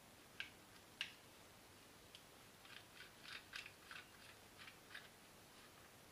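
Faint small clicks from hard parts being handled: two sharp clicks in the first second, then a quick run of about ten short clicks and scrapes.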